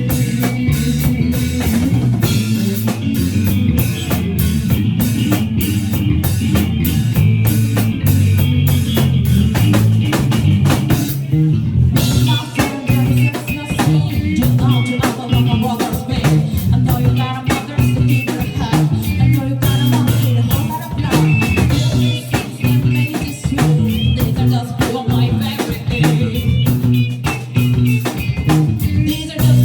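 Live band playing a song on drum kit, electric guitar and bass, with a steady rock beat; the cymbals and upper instruments drop out briefly about 12 seconds in, then the band comes back in.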